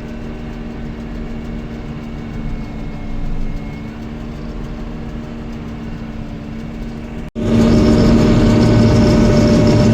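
Combine harvester running steadily while harvesting soybeans, a constant engine hum with a level pitch. About seven seconds in, the sound cuts abruptly to a much louder, closer run of the same machinery.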